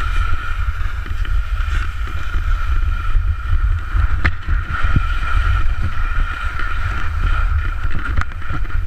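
Wind buffeting an action camera's microphone while skiing over avalanche debris, with skis scraping the snow. The rumble is steady and close, with a thin, steady whistle-like tone through it and a couple of sharp clicks.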